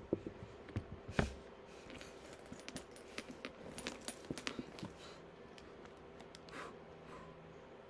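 A handbag being handled up close: its metal hardware clinks and taps in a scattered run of small clicks, with one louder knock about a second in.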